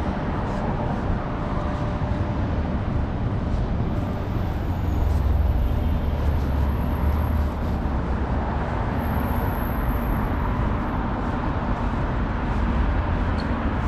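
Steady rumble and running noise of vehicles in motion, with a faint high whine that comes and goes twice in the middle.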